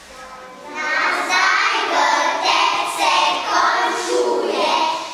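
A group of young children singing together in unison, starting about a second in.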